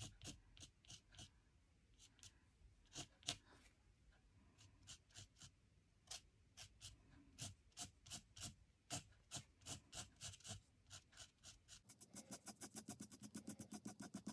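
Faint scratching of a felt-tip art marker on paper in short colouring strokes, a few a second, turning into quicker back-and-forth strokes near the end.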